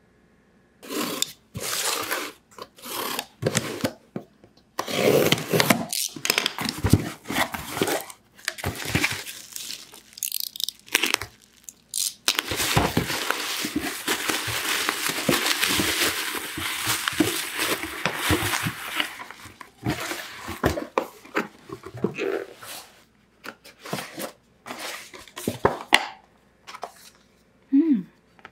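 Bubble-wrap packaging being handled and torn open: bursts of crinkling and tearing plastic, with a longer stretch of steady crinkling about halfway through.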